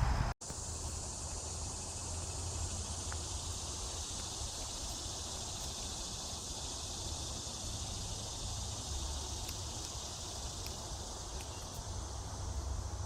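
Steady late-summer insect chorus, an even high-pitched hum over a faint low rumble. The sound cuts out for an instant just after the start.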